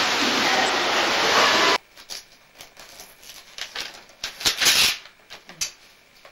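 Steady wash of indoor swimming-pool noise that cuts off abruptly about two seconds in. After it comes wrapping paper crackling and tearing in irregular rustles as a present is unwrapped, loudest just past the middle.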